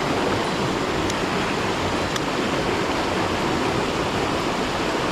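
Steady rush of a mountain stream's flowing water, running evenly without a break.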